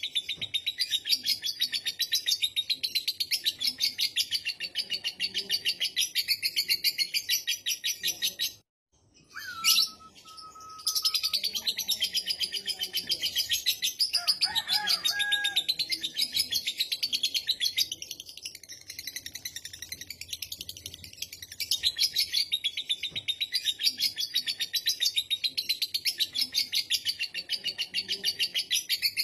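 Lovebird's long ngekek chatter: an unbroken stream of very fast, shrill repeated notes. It cuts out for a moment about nine seconds in, a few lower whistled notes follow, and then the chatter resumes.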